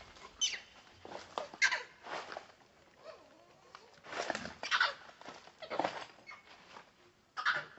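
Infant long-tailed macaque giving a series of short, high-pitched cries, some falling in pitch, several times.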